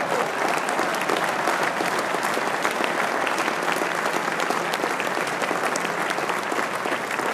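Large crowd applauding: a steady, dense clatter of many hands clapping.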